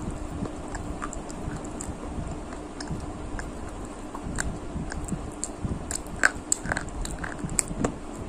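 Close-up crunching and chewing of crisp brown snack sticks, with irregular sharp cracks as they are bitten and broken; the loudest cracks come a little past the middle. A faint steady hum sits underneath.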